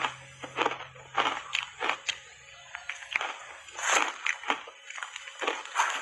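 Ice coated in matcha powder being crunched and chewed in the mouth: a run of short crunches, about two a second, the loudest about four seconds in.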